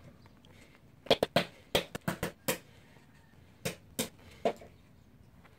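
Handling noise from a small steel brake bleeder bolt being wiped dry in a paper shop towel: about a dozen sharp clicks and taps in an irregular run, most of them packed between about one and two and a half seconds in, the rest spaced out until near the end.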